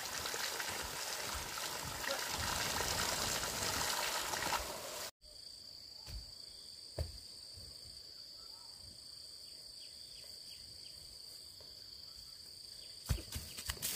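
Running water for about five seconds, then a sudden cut to a steady high-pitched insect drone in a forest, with a few footsteps near the end.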